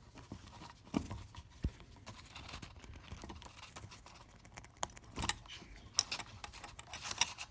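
Scattered small clicks and knocks of meter test-lead clips being pulled and worked off a grinder's wire posts, with a few sharper clicks about a second in and in the last few seconds.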